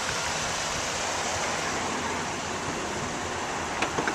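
Steady rushing background noise, with a few faint clicks near the end.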